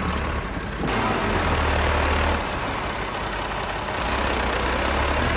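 Massey Ferguson tractor diesel engine running, over a steady noise of machinery; its low hum shifts in pitch and level about a second in, near the middle and again about four seconds in.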